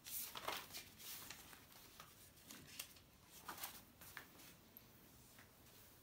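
Faint scratching and rustling of pen and paper in a run of short strokes, strongest in the first second or so.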